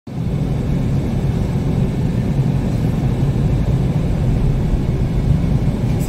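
A car driving at road speed, heard from inside the cabin: a steady low rumble of tyre, engine and wind noise.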